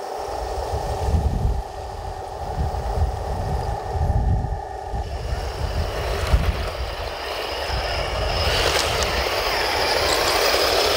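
Radio-controlled Taigen M41 Walker Bulldog model tank driving over dirt. A steady whine from its drive runs through the first half. A gritty hiss from the tracks grows louder over the last few seconds as the tank comes right up to the microphone. Gusty wind rumbles on the microphone throughout.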